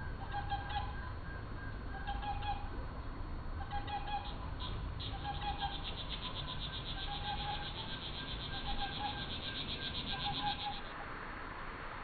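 Outdoor ambience slowed to one-fifth speed, so everything sounds deep and drawn out: a low rumble under a short pitched-down call that repeats about every 1.7 s, seven times. From about four seconds in, a fast buzzy pulsing joins it and stops shortly before the end.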